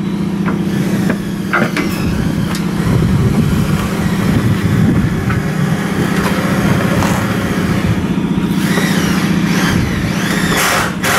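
An engine idling with a steady low drone, under scattered clicks and handling noises of parts being worked by hand, and a quick run of sharp knocks near the end.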